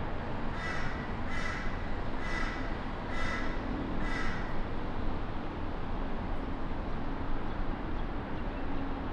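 A crow cawing five times, about a second apart, in the first half. Under it runs the steady low rumble of a Boeing 777's engines on final approach.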